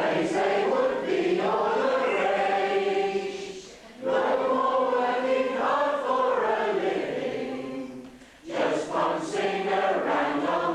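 A small group of men's and women's voices singing a song together in long held phrases, with short breaths between phrases about four and eight seconds in.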